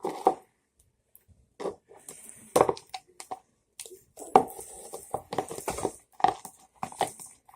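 Irregular clicks, knocks and scrapes of things being handled at a table, such as containers and a spoon or bowl, in quick uneven succession.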